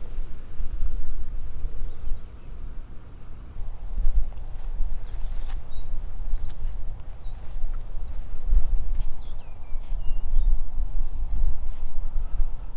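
Wind buffeting the microphone in an uneven low rumble, with small birds singing over it in quick high chirps and trills.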